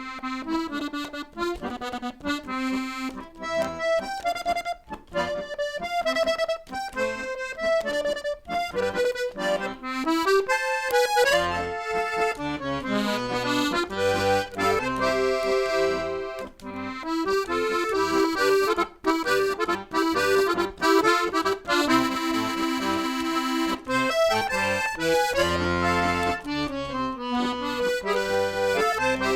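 Accordion playing a lively tune, a quick melody over steady chords, with the bellows sound of reeds throughout.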